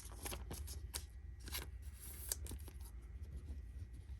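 Soft plastic card sleeve rustling as a trading card is slid into it, with small clicks and a brief scratchy crinkle about two seconds in.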